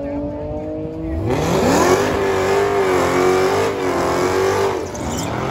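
Dodge Charger doing a burnout: the engine idles, then about a second in revs sharply up and holds high while the rear tyres spin, before dropping off near the end.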